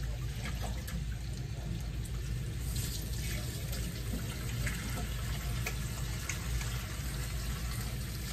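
Kitchen faucet running into a sink while hands are washed under it, with small splashes and clicks, over a steady low hum.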